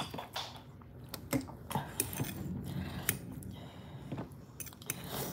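A metal fork scraping and clicking against a ceramic dinner plate as food is scooped up, with several sharp, separate clicks spread through.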